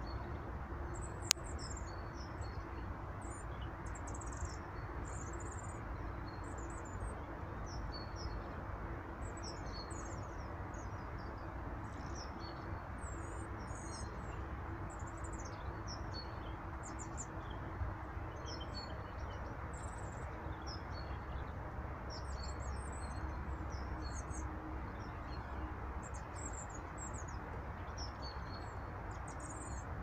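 Small songbirds chirping and calling in quick, high notes throughout, over a steady outdoor background hiss, with one sharp click about a second in.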